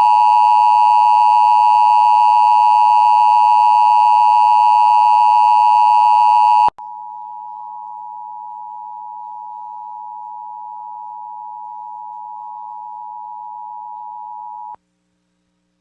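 Emergency Alert System attention signal: a loud, steady two-tone alarm near 1 kHz that cuts off about six and a half seconds in. A second, quieter steady tone then sounds and stops about a second before the end.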